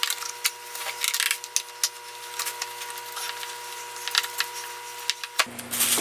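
Handling noise: irregular clicks, taps and plastic-bag crinkling as hands work the fuel tank loose from a backpack leaf blower, over a faint steady hum.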